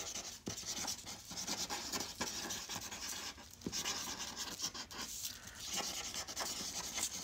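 Posca acrylic paint marker scratching across paint-covered paper in quick cursive writing strokes. It comes as a run of short strokes with brief pauses in between.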